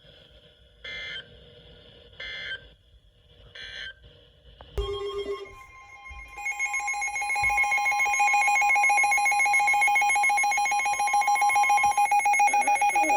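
Emergency Alert System tones: three short bursts of screeching SAME header data, then, about six seconds in, the loud steady two-tone EAS attention signal (853 and 960 Hz) that announces a new alert.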